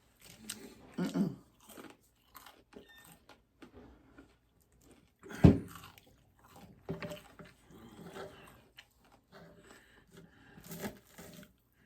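Close-up eating sounds: crisp breakfast food such as bacon and hash browns being bitten and chewed, with scattered crunches and crackles. A single loud knock about five and a half seconds in.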